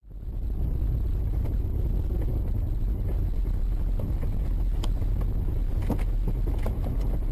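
Steady low rumble of a moving vehicle, engine and road noise, with a few faint clicks in the second half.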